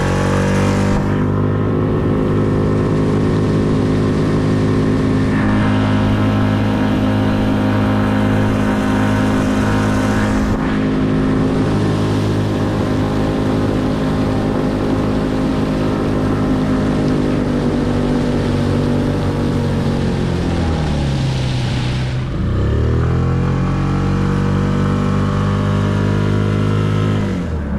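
2023 Tohatsu 6 hp four-stroke outboard running steadily at high throttle with no bogging down, the sign that its cleaned carburetor and new fuel filter have cured the fault. About twenty seconds in the revs drop, then climb back up a couple of seconds later, and they fall again at the very end.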